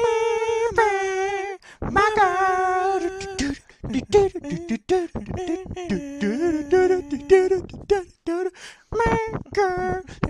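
Wordless a cappella vocal music: voices singing a dance tune in short held notes, with mouth-made percussion clicks between them.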